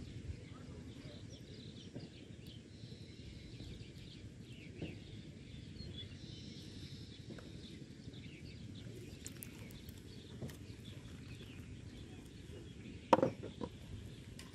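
Outdoor ambience: a steady low background rumble with faint bird chirps, broken about 13 seconds in by one sharp knock and a few smaller clicks.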